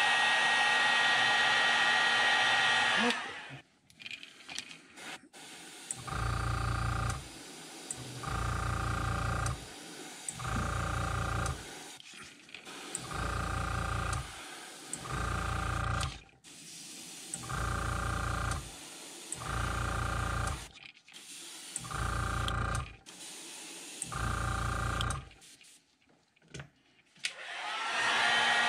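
A hot-air dryer runs to set the paint and cuts off about three seconds in. After that comes a string of about ten short bursts, each about a second long, as an airbrush and its compressor run with each press of the trigger for short detail spraying. Near the end the dryer starts up again.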